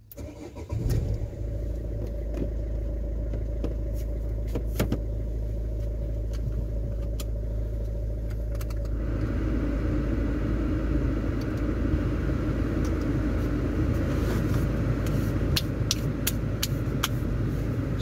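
Car engine starting, then running steadily with a low hum. About nine seconds in, a louder, even rush of noise joins it.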